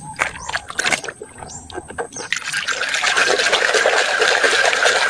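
Water splashing and running over a plastic toy as it is washed. Scattered small knocks and splashes come first, then a steady rush of water from a little over two seconds in.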